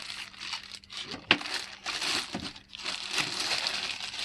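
Plastic wrapping crinkling and rustling as it is pulled off and handled, in irregular bursts, with one sharp click a little over a second in.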